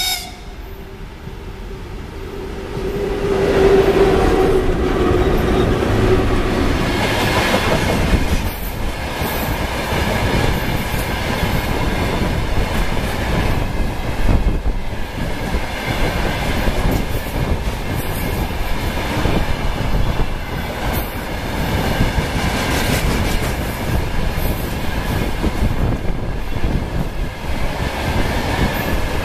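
Freight train hauled by a VL11M DC electric locomotive passing close by. The noise swells over the first few seconds as the locomotive arrives, with a steady tone as it goes by. Then loaded freight wagons rumble past with a continuous clickety-clack over the rail joints.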